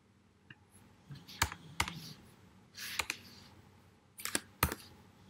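Computer keyboard keystrokes: a handful of separate key taps with pauses between them, a few coming close together near the end.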